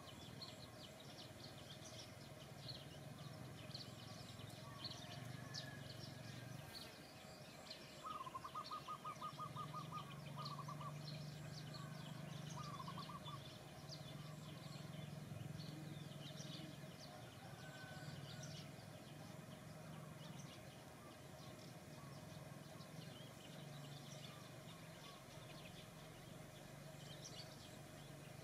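Faint outdoor ambience of small birds chirping all through. A bird gives a rapid run of about ten quick repeated notes around eight seconds in, with two shorter runs a few seconds later, over a steady low hum.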